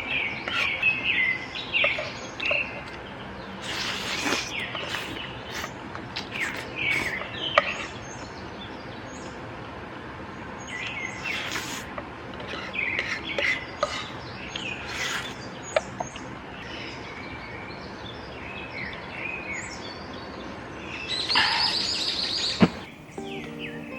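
Forest birds chirping and singing in short, scattered calls over a steady outdoor background, with a few sharp clicks and a brief louder, denser burst of sound near the end.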